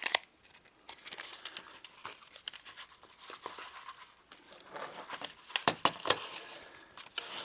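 Paper rustling and crinkling as a drawing is handled, with scattered clicks and a few sharper knocks about two thirds of the way in.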